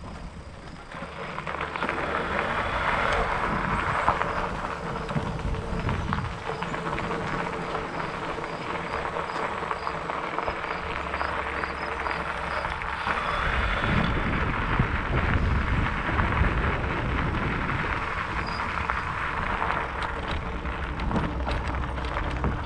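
Fat bike's wide tyres rolling over grass and a gravel path, a steady noisy rolling sound with a deeper rumble in the second half.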